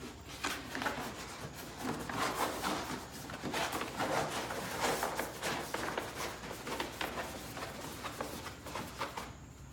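Printed vinyl wall-graphic sheet rustling and crinkling as it is rolled up and handled, an uneven run of crackles and small taps.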